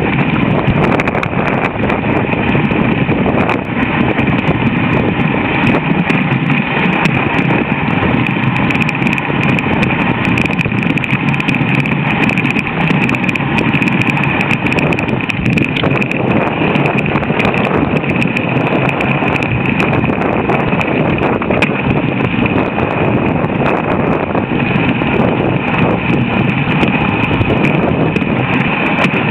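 Dog sled moving over snow behind a running team: a steady rush of runners on snow with the quick patter of many paws, unbroken throughout.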